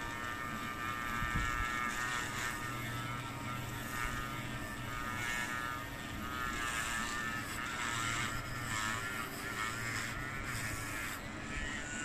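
Dremel rotary tool spinning a small brush attachment against the bonnet of a bare diecast metal car body, cleaning off the last paint: a steady high motor whine whose pitch wavers as the brush is pressed on and eased off. Near the end the brush is lifted clear and the scrubbing hiss drops away while the motor keeps running.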